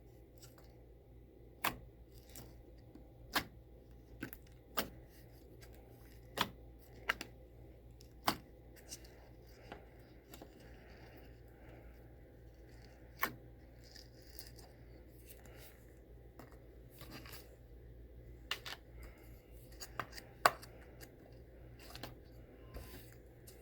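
Slime being squeezed and worked by hand, giving irregular sharp pops and clicks every second or two over a faint low hum.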